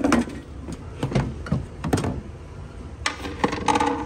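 Pry bar levering a replacement radiator into its mounts in the engine bay: a few separate knocks and clunks, then a longer rattling scrape about three seconds in.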